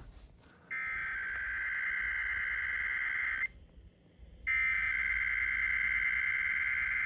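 Emergency Alert System SAME header data bursts: two long bursts of buzzy digital tones, about three seconds each with a second's gap between them. They are the second and third sendings of the encoded alert header that comes before the attention signal.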